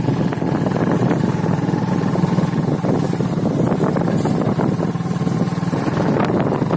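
A motorcycle engine running with a steady low hum while the bike is ridden along.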